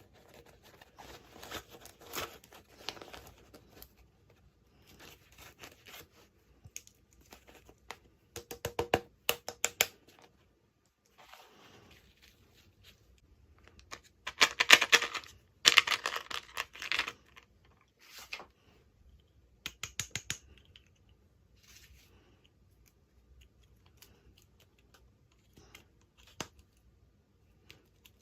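Toy packaging being handled and opened by hand: intermittent crinkling, tearing and small clicks, loudest in a burst of rustling about halfway through.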